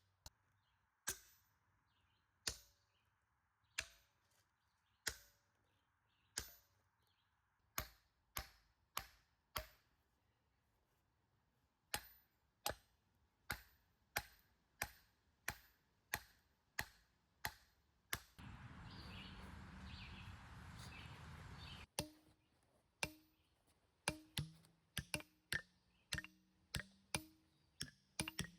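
Hammer strikes on steel wedges and feathers set in drill holes in a boulder, splitting the rock: sharp single strikes about every second and a quarter, quickening to well under a second apart. In the middle a steady noisy sound of about three and a half seconds breaks in, and after it the strikes carry a low ring.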